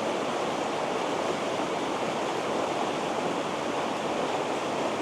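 River water rushing and burbling steadily over its bed.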